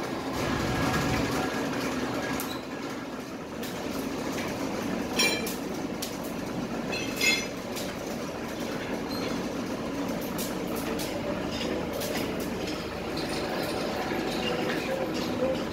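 Rubber extruder's gear drive running steadily while silicone rubber is fed through it, with two sharp metallic clinks about five and seven seconds in.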